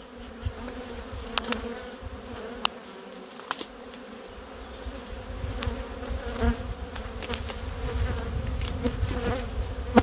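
Honey bee colony buzzing around an opened, freshly smoked hive: a steady hum, with a few sharp clicks and knocks as the wooden hive boxes are worked.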